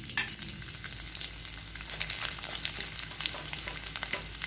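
A tempering of seeds, dals, dried red chillies and chopped garlic sizzling in hot oil in a steel kadai, with many small pops and crackles. A steel spoon stirs it against the pan.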